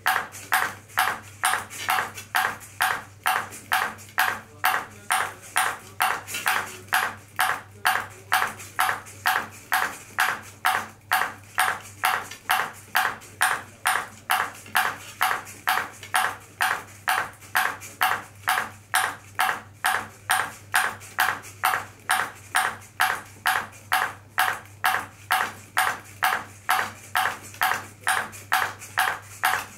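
Ping pong ball bouncing over and over on a robot's clear plastic paddle, a sharp, evenly spaced tick about twice a second.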